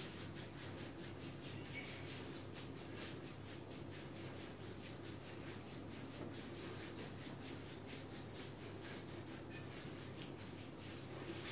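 Faint rubbing of a massage therapist's hands on the bare skin of a lower leg, in short, evenly repeated strokes.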